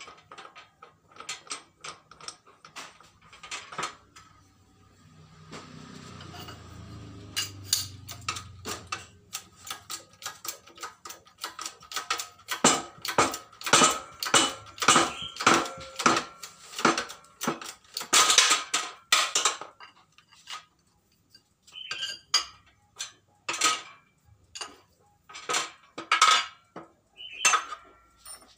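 Metal clacking and clinking as a hand-operated hydraulic bottle-jack press is worked, with a slight metallic ring on each stroke. The strokes come quickly, about two a second, through the middle, then turn sparse and irregular near the end.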